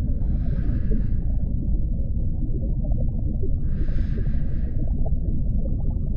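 Underwater diving ambience: a steady deep rumble of water pressure, with two breaths through a scuba regulator, each a hiss lasting about a second, one at the start and one about three and a half seconds in.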